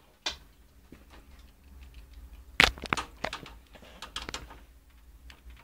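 Scattered clicks and knocks of hands and a screwdriver working at the screws of a metal desktop computer case, the loudest knock about two and a half seconds in, followed by a quick run of smaller clicks.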